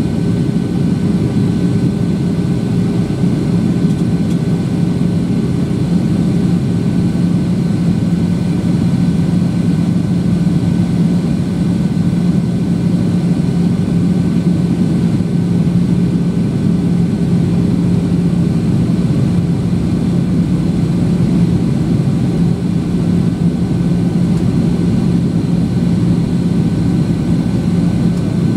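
Steady in-flight cabin drone of a Boeing 737-800 from a window seat beside the wing: its CFM56-7B turbofans and the rushing airflow, a low even hum with a faint high whine above it.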